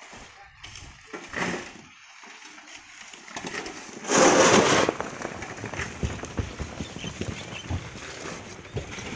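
Loaded wheelbarrows pushed over gravelly ground, with a steady run of small crunches and rattles. About four seconds in comes a loud, harsh noise lasting under a second.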